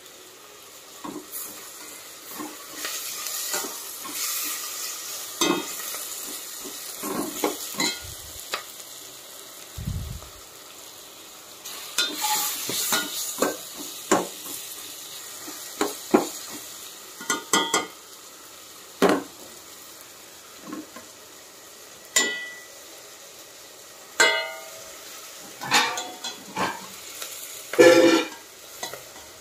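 Sliced onions sizzling in hot oil in a stainless steel pot while a steel spoon stirs them, scraping and clicking against the pot in many short strokes. Near the end, cut tomatoes are tipped in from a plate with a louder clatter.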